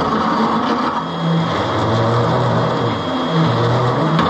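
Electric hand drill running continuously, its motor pitch dropping and rising again several times as it works, then stopping.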